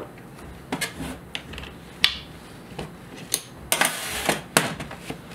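Small stainless-steel workholding parts being handled: a string of light metal clicks and taps, a sharper knock about two seconds in, and a brief scraping rub near four seconds.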